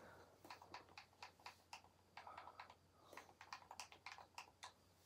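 Faint, light clicks of typing in short irregular runs of several a second, as a name is typed into a search.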